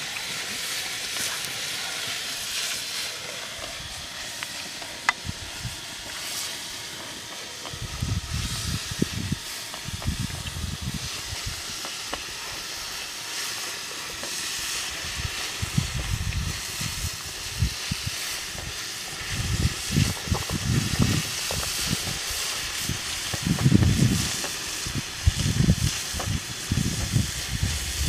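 Chopped snake meat sizzling in a pan over a wood fire, a steady hiss throughout. From about eight seconds in, irregular dull knocks join it as the pan is stirred.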